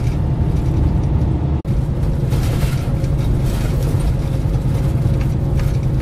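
Semi truck's diesel engine running steadily, with road and tyre noise, heard from inside the cab while driving. The sound drops out for an instant about one and a half seconds in.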